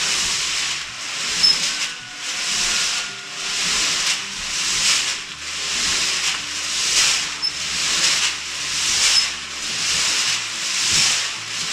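Seed tumbling and sliding inside a hand-cranked steel barrel drum mixer: a rushing hiss that swells and fades about every two seconds as the drum turns.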